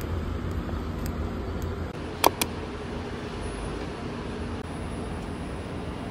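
Steady low rumble of traffic, with two sharp clicks close together a little over two seconds in.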